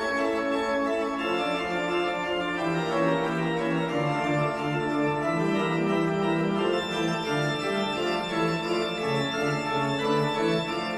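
Organ music: slow sustained chords, with a lower line of notes coming in about a second in.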